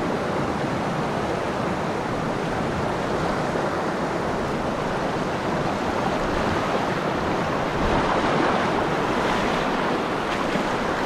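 Rocky mountain stream rushing over a boulder riffle: a steady wash of white water, a little louder about eight seconds in.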